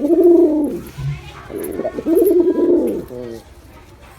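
Male pigeon cooing: two rising-and-falling coos, with a short stuttering coo after the second.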